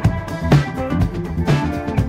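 Instrumental background music with a steady beat of about two strikes a second.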